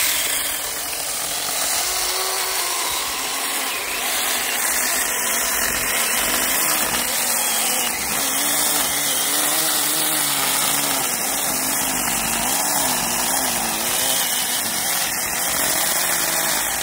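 Saker battery-powered mini chainsaw running continuously as its chain cuts through a knotty limb about six inches thick, larger than the saw's recommended four-inch capacity. The motor's pitch wavers up and down as the load on the chain changes.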